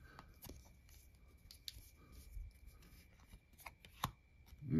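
Faint rustling and soft clicks of a stack of football trading cards being handled and slid past one another, with a few sharper ticks in the second half.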